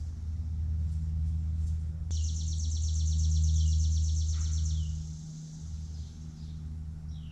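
A songbird sings a fast, even trill of repeated high notes for about two and a half seconds, starting about two seconds in. Under it is a low rumble that swells in the middle and then eases off. A few faint short chirps come near the end.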